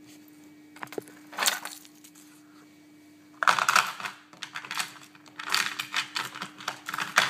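Small polymer clay charms being handled and moved about: clusters of light clicks, clinks and rattles, about a second in and again from about three and a half seconds on.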